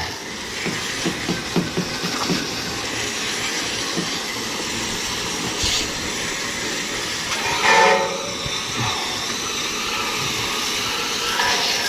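Steady hiss of water spraying from a hose onto an air-conditioner condenser unit, cooling its overheated fan motor and compressor so the open motor windings will close again. A brief voice is heard about eight seconds in.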